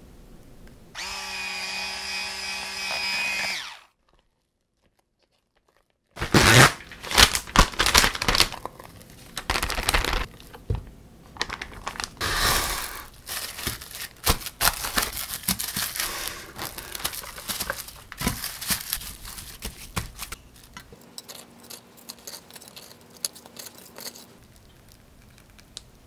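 An electric hand mixer whirs steadily for about three seconds and cuts off. After a short silence, plastic cling wrap is pulled off its roll and crinkled as it is pressed into a glass dish, a long stretch of loud, irregular crackling that thins out to faint rustles near the end.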